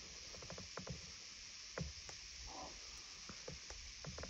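Faint steady hiss of outdoor background, with a few soft scattered clicks.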